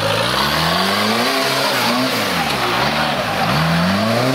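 Off-road vehicle engine revved hard and let fall about three times in a row, its pitch rising and dropping with each burst of throttle.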